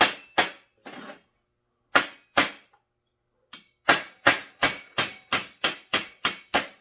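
Light hammer taps on a McCulloch S550 chainsaw cylinder, knocking out the freeze plugs that seal the transfer-port drillings. A few scattered taps, then a run of about nine even taps, about three a second, in the second half.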